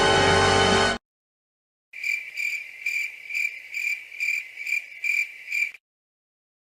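Crickets chirping sound effect: a high, even chirp repeating about twice a second for about four seconds, starting about two seconds in. Before it, a held musical chord cuts off about a second in.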